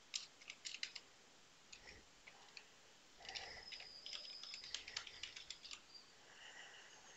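Faint computer keyboard typing: scattered key clicks in the first second, then a quicker run of clicks from about three seconds in.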